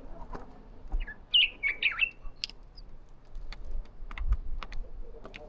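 A bird gives a short burst of chirping calls about a second in, followed by a scattered run of sharp clicks or taps.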